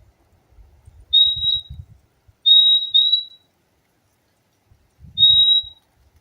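Purple-throated euphonia (fim-fim) calling: high, clear, level whistled notes, one, then a quick pair, then one more.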